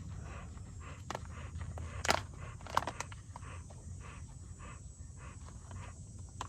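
Dog panting steadily, about three breaths a second, with a few sharp clicks and rustles from handling a food pouch and spoon.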